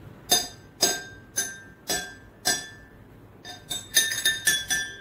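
Metal spoon striking a row of empty drinking glasses, each giving a ringing clink at about the same pitch. Five evenly spaced strikes, a short pause, then a quicker run of about seven taps.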